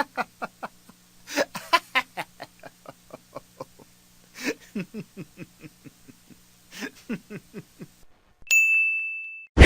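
Laughter sound effect: several bouts of quick, repeated 'ha-ha' pulses, some sliding down in pitch. Near the end, a single bright bell ding rings out and fades.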